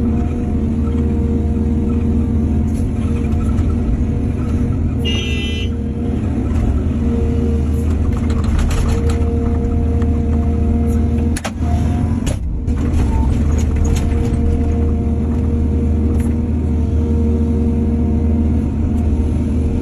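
Excavator's diesel engine running steadily, with a brief high whine about five seconds in and a few sharp knocks around eleven to twelve seconds.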